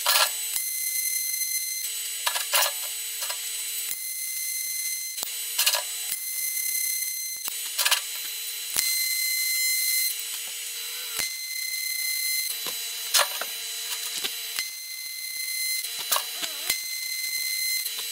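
Pulse MIG welding on steel plate: a steady, high buzzing arc, laid down in a string of short weld runs that each start and stop with a sharp crackle.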